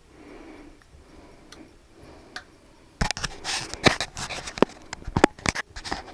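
Hand tools and metal parts being handled during work on a central air unit: a quick, irregular run of sharp clicks, knocks and clatter that starts about halfway through, after a quiet start.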